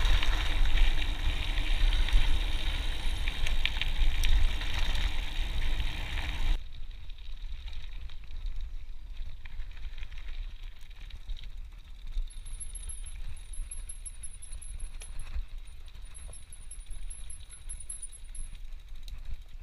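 Wind rumbling on a chest-mounted camera's microphone and mountain-bike tyres rattling over a gravel track. This cuts off suddenly to quieter rolling. Later the rear freewheel hub ticks rapidly in two runs while the bike coasts.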